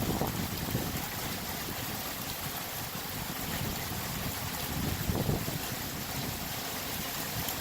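Heavy thunderstorm rain pouring down in a steady hiss, with low buffeting on the microphone swelling up twice.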